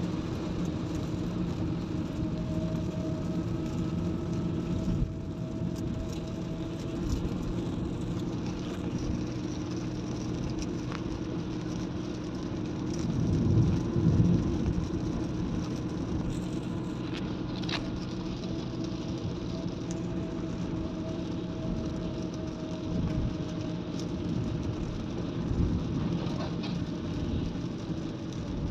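Steady drone of a car's engine and tyres on a wet road, heard from inside the cabin, swelling louder for a couple of seconds about halfway through.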